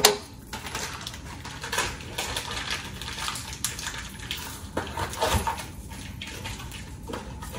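Kitchen clatter: a sharp clack at the start, then scattered clinks and knocks of utensils and dishes.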